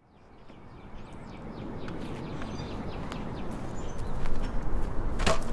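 Outdoor ambience: a steady low noise that grows louder, with faint bird chirps and light footsteps, and one sharp knock about five seconds in.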